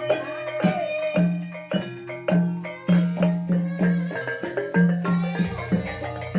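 Banyumasan gamelan music in the ebeg style: struck, ringing pitched percussion over regular low notes about twice a second.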